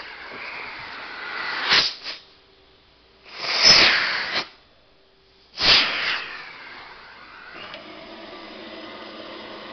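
Vacuum hose of a Techno Viking carpet-cleaning extractor sucking air in three loud, sudden rushes, cut off between them as the hose end is closed off while it is fitted to the cleaning wand. Near the end a steadier, quieter rush of suction goes on with the machine's hum.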